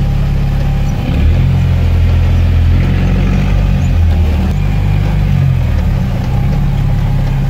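A V8-engined UAZ off-roader's engine heard from inside the cab, pulling under load along a muddy track. Its deep note shifts up and down several times as the throttle and load change.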